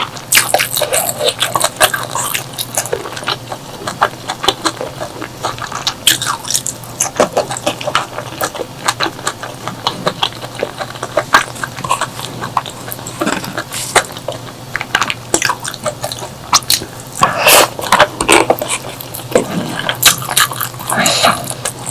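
Close-miked eating sounds: a person chewing and biting, with many sharp, wet mouth clicks and smacks, and a louder, noisier mouthful about 17 seconds in.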